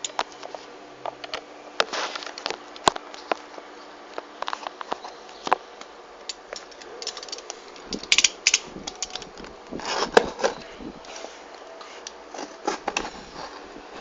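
Packaging being handled and opened by hand: irregular crackles, rustles and sharp clicks of cardboard and wrapping.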